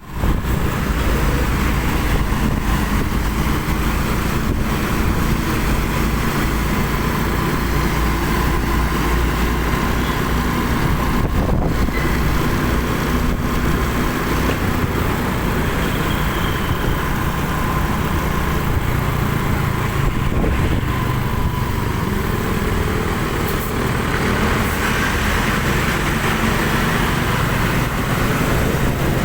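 Road vehicle engines running steadily in traffic: a continuous low engine drone over tyre and road noise, drifting slightly in pitch.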